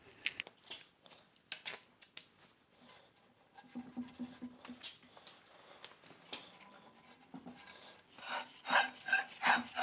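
Duct tape being handled and wrapped onto the smooth friction drive wheel to give it traction: scattered small clicks and rubbing, then near the end a quick run of short raspy tearing bursts as tape is pulled off the roll.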